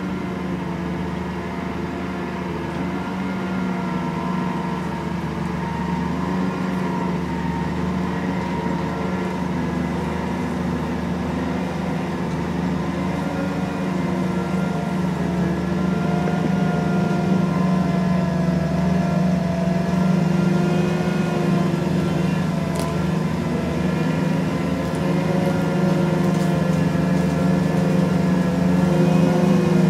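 John Deere 2254 Hillmaster combine harvester's engine running steadily under load, its pitch wavering slightly and growing gradually louder.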